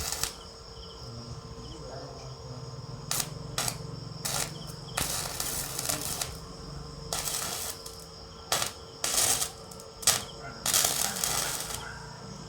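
Stick (shielded metal arc) welding on steel: the arc crackles and hisses in a string of short starts and stops, some brief like tack welds and others running about a second, over a steady drone.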